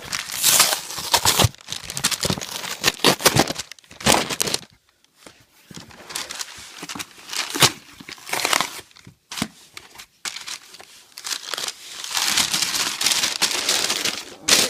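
Packaging being torn open and crumpled by hand, in loud irregular bursts of crinkling and ripping with short pauses between.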